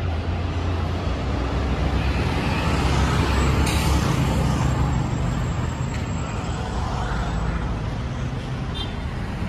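City road traffic: vehicle engines and tyre noise, with a low rumble through the first few seconds and a brief hiss just under four seconds in.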